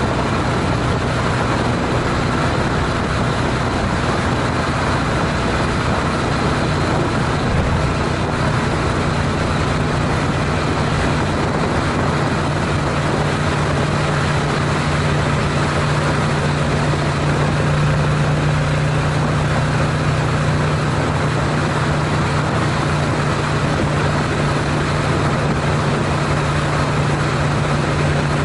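Honda CTX700N motorcycle's parallel-twin engine running steadily at highway cruising speed, around 65 mph, with a low steady hum under a continuous rush of wind and road noise.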